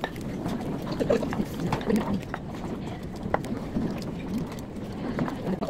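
Indistinct background chatter of many voices, with scattered short clicks and clinks.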